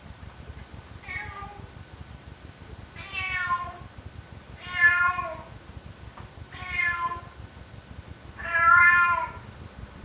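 A domestic cat meowing five times, each meow a short drawn-out call about a second apart, the last one the longest and loudest.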